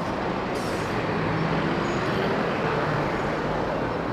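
Busy city street traffic: cars driving past close by, a steady noise of engines and tyres with a low engine hum.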